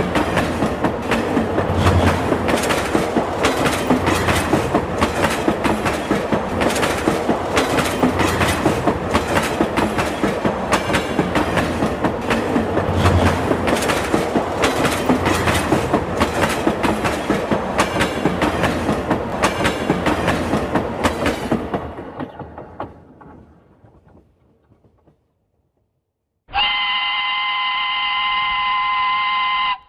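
Train clattering over rail joints in a steady clickety-clack rhythm with a low rumble, dying away about three-quarters of the way through. After a brief silence, a long steady horn blast at one pitch closes the window.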